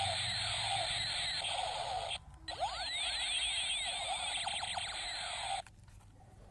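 Electronic firing sound effects from a battery-powered toy gun: a rapid run of overlapping laser-like zaps whose pitch sweeps down and up many times a second. It breaks off briefly just after two seconds, resumes, and stops about five and a half seconds in.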